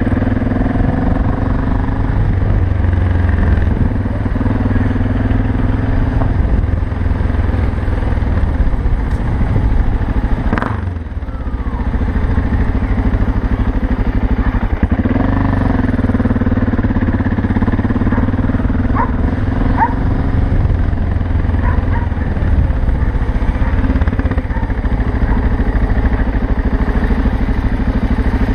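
BMW 650 GS single-cylinder enduro motorcycle engine running under way, with a brief drop in engine sound about eleven seconds in before it picks up again.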